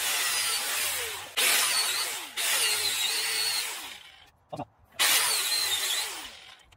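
Angle grinder cutting into metal under a pickup's rear axle in about four bursts. In each burst the motor's pitch sinks as the disc bites in, and it winds down in the short pauses between cuts.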